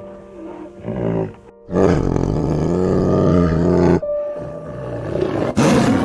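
A large animal's long, low-pitched call lasting about two seconds, with a second loud call near the end, over gentle background music.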